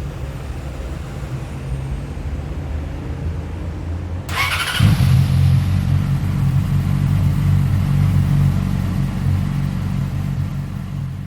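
Motorcycle electric starter pressed about four seconds in, a brief whirring burst, and the engine catches and settles into a steady, louder idle: the start button works again after being cleaned of spider web. A low engine rumble is already there before the start.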